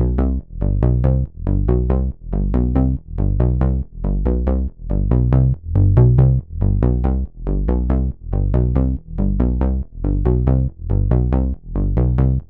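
Electronic music with a synthesizer chord pulsing in a steady rhythm, about two beats a second, heavy in the bass.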